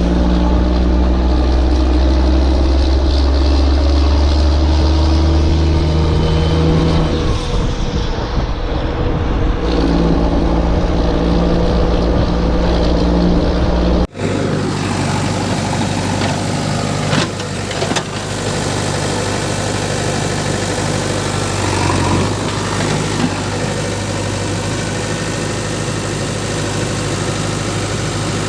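Engine running with its pitch shifting up and down, then, after an abrupt cut about halfway, a steadier engine idling.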